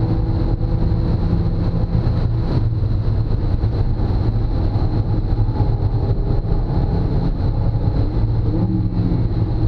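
Car engine and road noise heard from inside the cabin at track speed. The engine holds a steady note as the car slows, then gives a brief rise in pitch near the end as the driver shifts down.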